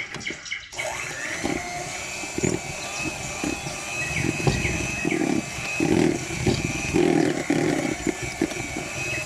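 Electric hand mixer switching on about a second in and running steadily, beating flour into egg-and-sugar cake batter in a bowl.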